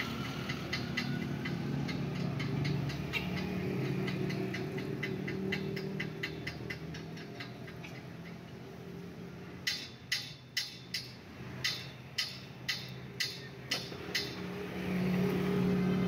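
Brass euro-profile lock cylinder being worked by hand with a pick, giving faint regular clicks and then, past the middle, a run of about ten sharp metallic clicks roughly two a second. A steady low mechanical hum runs underneath.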